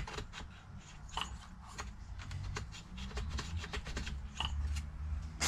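Scattered small clicks and ticks of a Husqvarna 340 chainsaw engine being turned over by hand at the flywheel, rolling the piston over top dead centre to crush a piece of silver solder fed into the cylinder, a check of squish clearance. A low hum comes in about two seconds in, and a sharper click lands at the very end.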